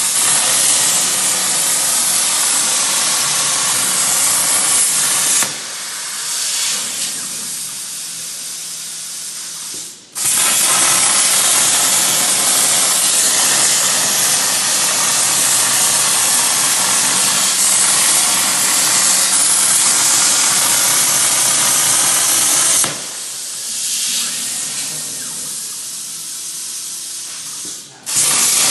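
CNC plasma torch cutting steel plate: the plasma arc's loud, steady hiss. The arc stops about five seconds in and again past the twenty-second mark, each time leaving a quieter hiss for about five seconds before the loud hiss starts again, the last time just before the end.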